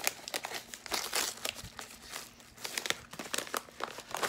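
Packaging of a mailed sample crinkling and rustling in the hands as it is opened: a quick, irregular run of crisp crackles.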